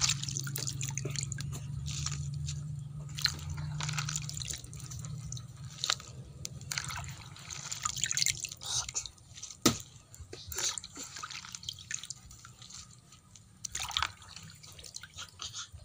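Water splashing and dripping as hands stir, scoop and squeeze shredded cabbage in a plastic basin of washing water, in uneven bursts with small knocks against the basin. A low hum runs under the first few seconds.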